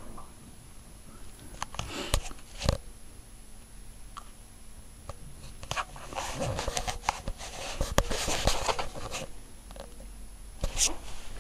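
Samsung WF9700N3W front-loading washing machine on its wool cycle: the drum turns slowly while a wet load of blankets flops and water swishes inside, with a few sharp knocks.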